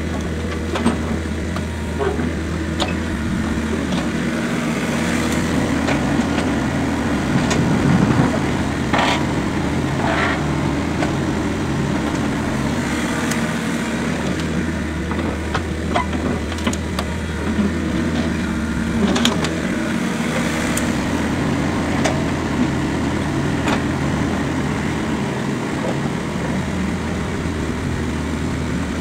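Excavator's diesel engine running and working its hydraulics, the engine note shifting as it takes load. Scattered sharp knocks and clanks come as the bucket swings over and dumps manure and straw into the tipper lorry's steel body.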